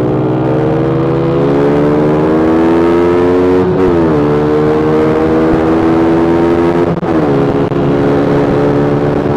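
Motorcycle engine pulling through the gears: its pitch climbs steadily, drops sharply at an upshift about four seconds in and again about seven seconds in, then climbs again.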